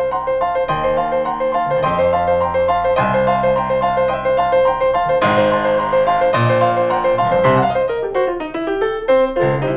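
Piano playing a rock and roll blues riff: double-stopped chords stepping E-G-C, F-A-C and G-B-flat-C, each coming back to C, over a steadily repeated high C, with short slides into the chords.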